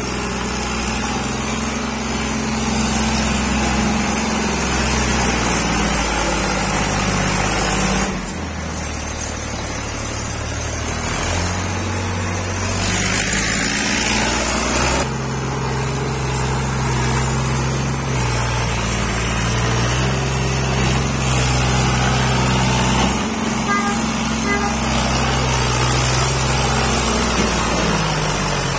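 New Holland tractor's diesel engine running under load as it hauls a trolley piled high with sugarcane, its pitch stepping up and down with the throttle.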